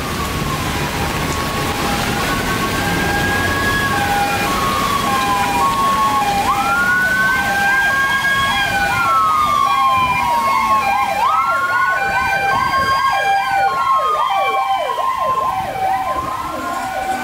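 Emergency vehicle sirens on a rainy city street: a slow wail that rises, holds and falls, repeating about every five seconds, over a steady two-tone hi-lo siren, joined from about six seconds in by a fast yelp for about ten seconds. Rain and traffic hiss underneath.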